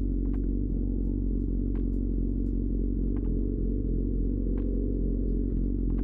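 Suzuki GSX-R 600's inline-four engine idling steadily through its Akrapovic exhaust, with a few light clicks over it.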